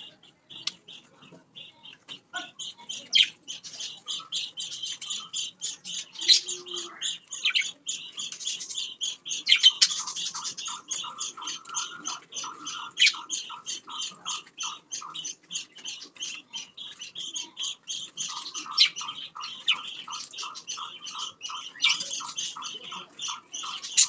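Budgerigars chattering in a continuous stream of rapid, short warbling chirps, with a lower pulsing chatter joining about ten seconds in and again near the end.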